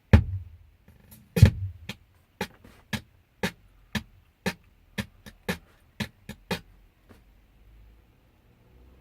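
Music with a steady drum beat, about two beats a second, playing from the radio of a Pumpkin aftermarket car stereo, then cutting out suddenly after six or seven seconds. The sound coming and going like this is the stereo's intermittent audio fault.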